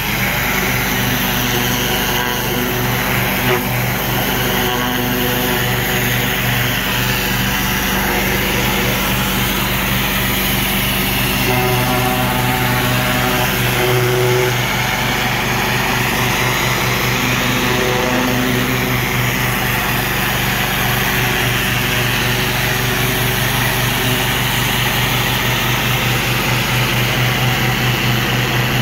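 Pressure washer's small engine running steadily under load, with the hiss of the water jet spraying against brick and concrete.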